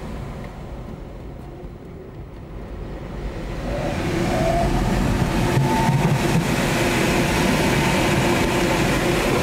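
Air rushing over a glider's cockpit and airframe during a hammerhead stall manoeuvre. It is low and subdued at first while the glider hangs near zero airspeed, then swells to a louder, brighter rush about four seconds in as it falls through and gathers speed.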